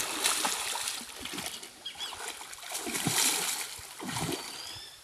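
A man plunging into a pond to grab fish by hand: a splash of water as he goes under, then more splashing and churning water with bubbles breaking the surface, rising again about three and four seconds in.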